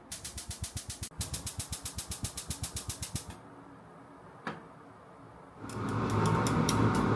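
A rapid run of sharp mechanical clicks, about eight a second, lasting about three seconds, then one lone click; near the end a loud, steady whirring with a low hum starts up.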